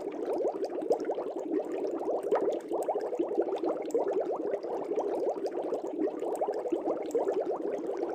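Air bubbles streaming up through aquarium water: a steady, dense bubbling made of many small blips a second.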